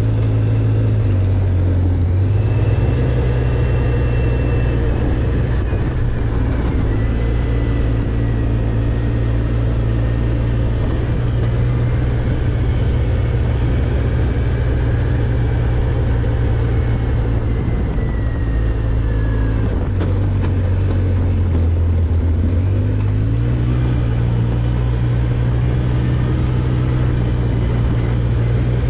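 Polaris ATV engine running steadily as the quad climbs a dirt trail, heard from on board. Its pitch rises a couple of seconds in, drops about two-thirds of the way through and rises again soon after.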